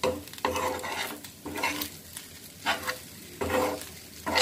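A steel spoon stirring and scraping egg fried rice around a frying pan in about eight quick strokes, each with a brief metallic ring, while the rice sizzles in ghee.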